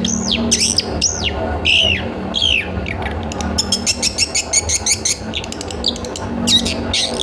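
Long-tailed shrike (cendet) call used as a lure: loud, sharp down-slurred whistled notes, then a fast run of dry clicking notes in the middle, and more whistles near the end.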